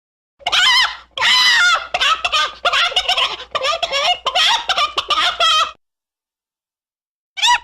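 A rapid, warbling run of fowl calls, gobble-like, lasting about five seconds and then cutting off abruptly.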